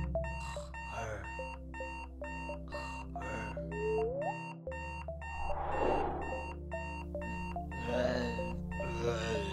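Digital alarm clock going off, beeping rapidly and evenly at about three short beeps a second over a steady low hum. A louder rush of noise swells up briefly about six seconds in.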